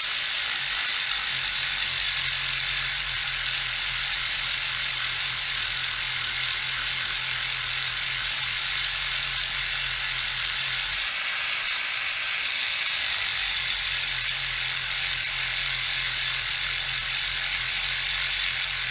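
Dspiae battery reciprocating sander running steadily at its higher speed, its sanding tip buzzing against a plastic model part to take down an ejector pin mark. The low hum briefly drops out about eleven seconds in.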